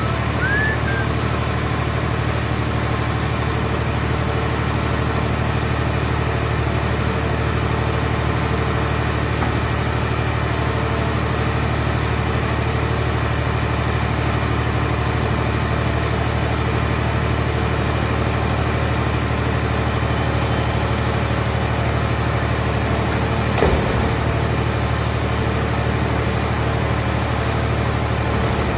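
Engine of a mobile car-shell baler running steadily at a constant speed, with a short clunk about 24 seconds in.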